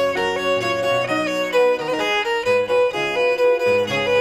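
Background music: a fiddle playing a tune with a steady pulse.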